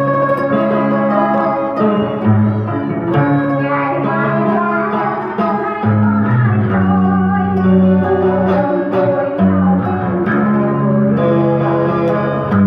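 A woman singing a Vietnamese song into a handheld microphone over a backing track of guitar and sustained bass notes.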